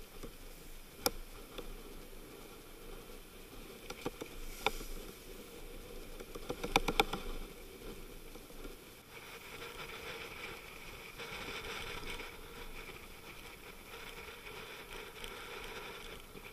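Steady rush of wind and breaking water around a sailing yacht heeled over in rough seas. Sharp taps cut through it about a second in and again around four seconds, with a quick flurry of them about seven seconds in.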